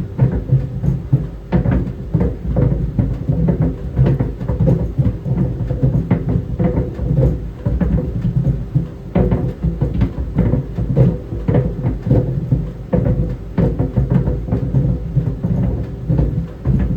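Tennis balls tumbling in a running clothes dryer: irregular, rapid dull thumps against the drum over the steady hum of the dryer.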